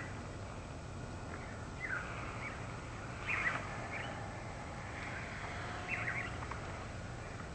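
Wild birds giving short chirps and calls every second or so, over a steady low rush of breeze.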